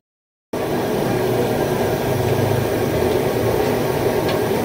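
Steady roar of an LPG gas burner under a frying pan of oil, running evenly without a break after a half-second dropout at the very start.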